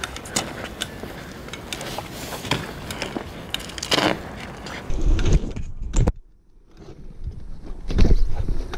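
BMX bike rolling over asphalt and paving: tyre noise with scattered clicks and knocks, one harder knock about four seconds in. After a brief near-silent break, a heavy low rumble of the bike riding over paving blocks, picked up by a camera mounted on the handlebars.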